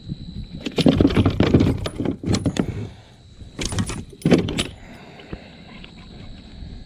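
Rattling and clattering in a plastic fishing kayak as a freshly caught northern pike is handled: one long bout about a second in and a shorter one near the middle, each made of many quick knocks.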